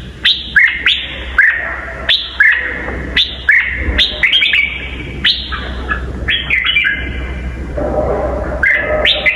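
Red-whiskered bulbul singing: a quick run of short whistled notes, each dropping sharply in pitch, repeated over and over, with a steady low hum underneath.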